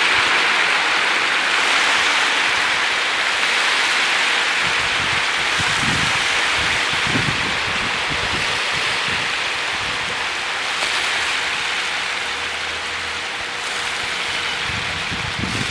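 A dense shoal of young catfish thrashing and splashing at the water's surface in a feeding frenzy, making a steady rain-like hiss of countless small splashes.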